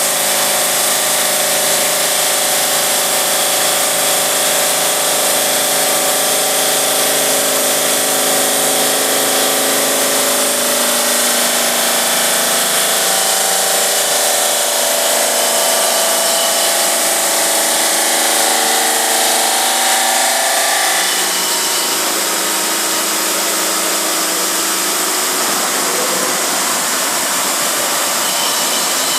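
GMM Brio Easy CNC bridge saw running, its diamond blade sawing 4 cm granite, a steady loud whine over a wide hiss. About two-thirds of the way through the whining tones drop out and the hiss carries on.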